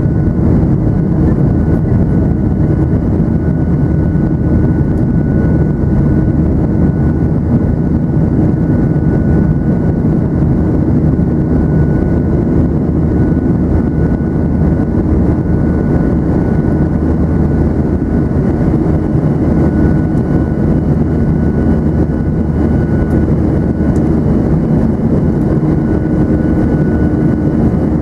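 Steady, loud cabin noise of a Boeing 737-900ER climbing after takeoff: the deep drone of its CFM56-7B turbofan engines and rushing airflow, with a thin steady whine above it.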